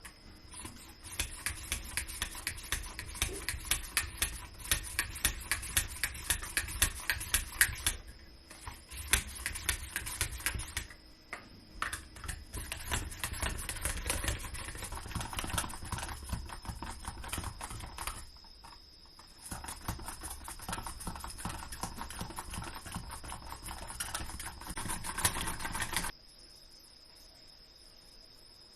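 Kitchen knife chopping vegetables on a cutting board in quick, regular strokes, about three to four a second, with a few short pauses; it stops suddenly near the end.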